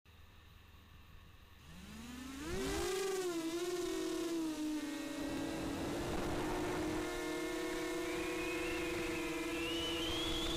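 Racing quadcopter's electric motors and propellers spinning up about two seconds in, then a steady high whine with rushing air as it flies; part of the whine climbs in pitch near the end.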